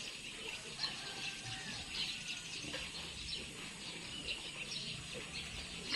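Scattered short, high-pitched animal chirps and squeaks over a steady low background hum.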